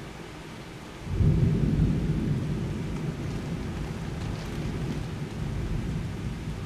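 Thunder breaks suddenly about a second in and keeps rumbling deep and low, slowly fading without dying away. Steady rain hiss runs underneath.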